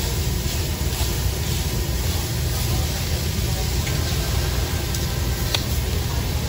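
Steady sizzling of steak and chicken on a hot hibachi flat-top griddle over a constant low rumble, with a few light clicks of the chef's knife and spatula on the steel.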